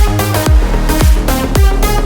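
Background electronic dance music with a steady kick-drum beat, about two beats a second, under synth chords; no vocal in this stretch.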